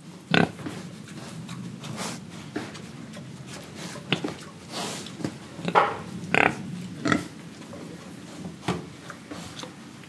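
Young pigs grunting and oinking in short, irregular bursts, the loudest about half a second in and again around six to seven seconds in.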